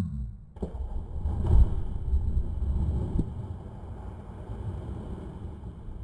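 A person jumping feet-first into a river: the splash as they hit the water comes suddenly about half a second in, followed by low rumbling noise that slowly fades over the next few seconds.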